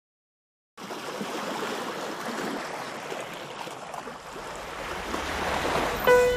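Wind buffeting the microphone outdoors, a steady rushing noise. Near the end a single sustained musical note comes in as music begins.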